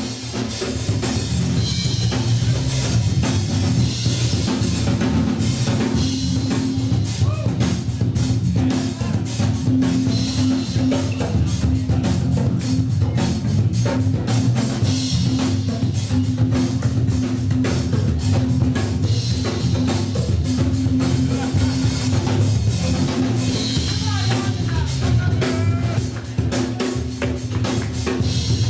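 Loud music with a steady drum-kit beat.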